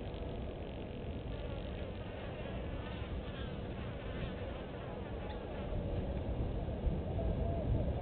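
Insects buzzing over a steady low outdoor rumble, with faint high chirps in the middle, swelling a little louder near the end.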